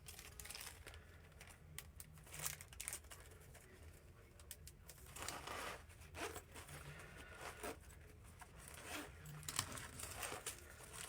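Faint crinkling and rustling of a small plastic baggie being handled and packed, with scattered light clicks.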